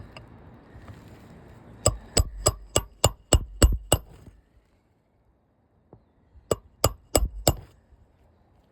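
Hammer driving roofing nails through asphalt shingles, re-nailing lifted shingles: a run of about eight evenly spaced strikes, roughly three a second, then after a pause four more.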